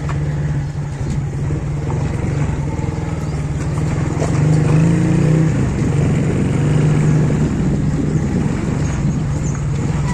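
Small motorcycle engine running steadily while riding slowly, with a car engine ahead; the engine note rises briefly about halfway through.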